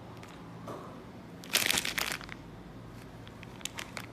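Crinkling and crunching of packaging being handled: one loud burst of crackling about a second and a half in, lasting under a second, then a few small clicks near the end.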